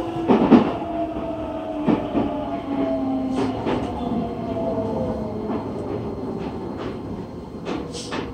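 Running sound of a Nagoya Municipal Subway N3000-series train, heard inside the car as it slows for a station. The motor whine falls steadily in pitch under braking, with scattered clicks of the wheels over rail joints, and the whole sound gets quieter toward the end.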